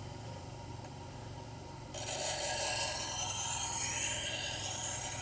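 A long curved grooming shear's edge is ground against the slowly turning wheel of an Ez-Vex sharpening machine, a hissing scrape that starts abruptly about two seconds in and wavers as the blade is worked along. It is raising a burr along the cutting edge. A low steady hum runs underneath.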